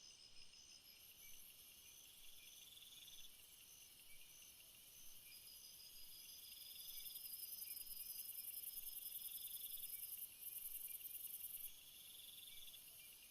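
Faint chorus of crickets and other insects: several high trills and chirps overlap, with a very high buzz that grows louder from about halfway and drops back near the end.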